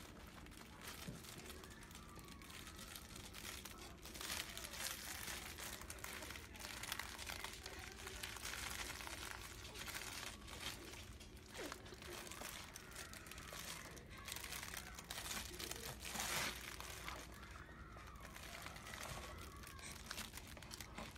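Faint crinkling and rustling of a baby's soft fabric toys as they are grabbed and mouthed.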